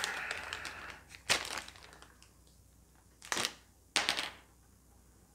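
Clear plastic zip-top bag crinkling as it is handled: a rustle that fades over the first second or so, then three short, separate crinkles about a second in, a little after three seconds and at four seconds.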